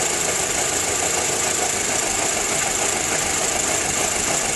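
2006 VW Passat's 2.0T FSI turbocharged four-cylinder engine idling rough since its intake camshaft was replaced. The owner likens the roughness to a vacuum leak, though the hoses check out, and fears a timing issue.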